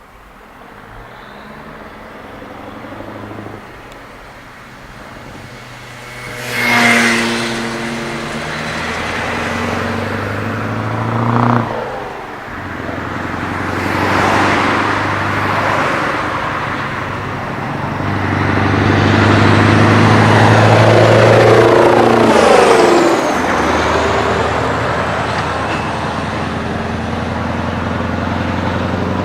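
Scania 143M 420 truck's V8 diesel pulling away and accelerating hard. The engine pitch climbs, then drops at each gear change, getting louder until a loud stretch past the middle. Near the end the pitch falls away as it passes, then settles to a steadier run.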